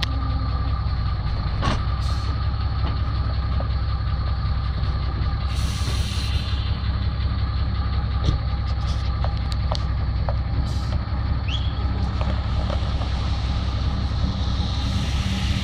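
Heavy diesel truck engine idling steadily, with a short hiss about six seconds in and a few light clicks.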